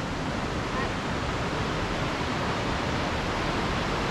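Steady, even rush of a creek and waterfall running through a small rocky gorge.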